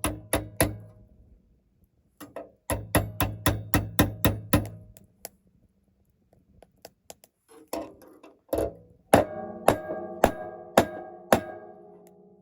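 Hammer blows forging a red-hot 3/8-inch rebar knife blank, in quick runs of about three strikes a second with pauses between. The last run rings with a metallic tone after each blow.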